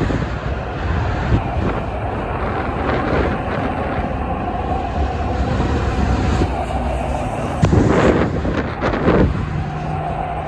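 Highway traffic noise: a steady rumble of many cars and heavy trucks passing, with wind buffeting the microphone. Two brief louder swells come about 8 and 9 seconds in.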